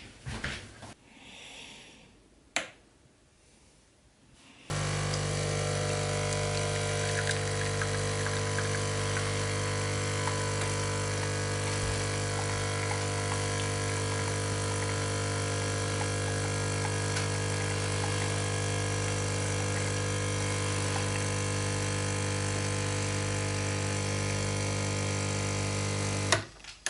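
Espresso machine's pump humming steadily while coffee streams from both spouts into a cup. It follows a single click, starts suddenly about five seconds in and cuts off suddenly just before the end.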